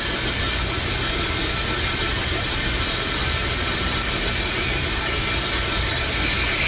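Metal lathe running: a steady machine drone with a hiss and a faint, constant high tone.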